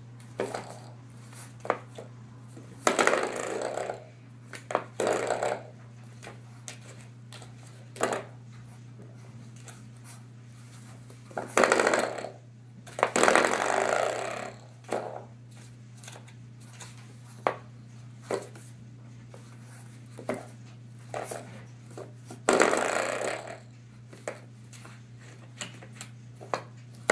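Coiled-spring door stop twanging as a French Bulldog puppy paws and flicks it. There are short sharp clicks and several longer boings of about a second each.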